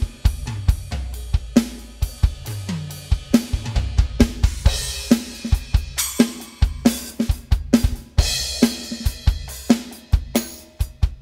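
Roland TD-30 electronic drum kit played through its module as a drum groove: kick, snare, toms and hi-hat, with several cymbal crashes splashing in along the way.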